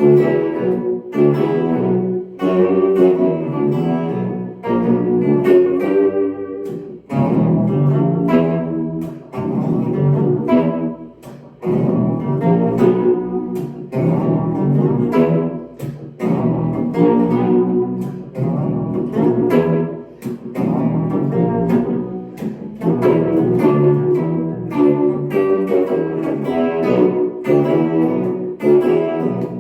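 Guitar played through an amp with an EHX Pitchfork pitch shifter set octaves down, plus a TC Electronic Viscous Vibe and Flashback delay, working through a jazzy chord-and-riff idea. The shifted notes sound low and bass-like.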